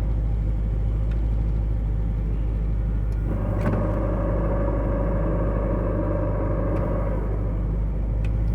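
Triumph TR7's engine idling steadily with the five-speed gearbox in neutral; a steady whining gear noise from the gearbox comes in a little over three seconds in and stops about seven seconds in, as the clutch pedal is let out and pressed again. The whine only sounds in neutral with the clutch engaged and is the transmission fault being shown.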